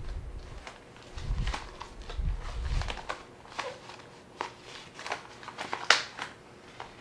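Rustling and crinkling of a small Neewer fabric softbox being stretched and fitted onto a light by hand, with scattered clicks, a few dull bumps early on, and one sharp snap about six seconds in.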